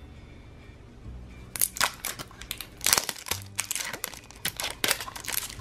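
Plastic wrapping on a toy capsule crinkling and crackling in quick bursts as it is handled and opened, starting about a second and a half in. Soft background music plays underneath.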